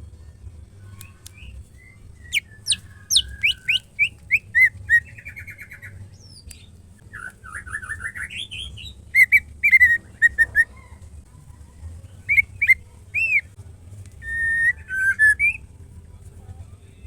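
Female white-rumped shama calling: phrases of quick, sharply down-slurred whistles, then a rising trill and more clipped whistled notes, in bursts with short pauses between them. A faint steady low hum lies underneath.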